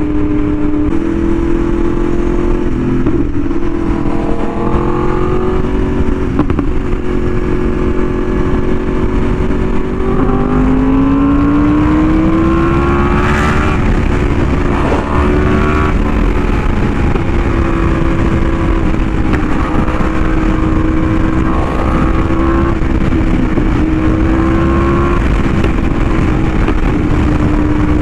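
Yamaha R1M's crossplane inline-four through an SC Project exhaust, running at steady cruising revs with small rises and falls. About ten seconds in the revs drop, then climb smoothly for a couple of seconds as the bike accelerates. Heavy wind rumble on the microphone underneath.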